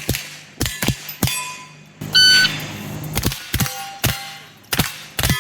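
.22 rimfire shots fired in quick strings, with the steel plate targets ringing after hits. An electronic shot-timer beep sounds about two seconds in.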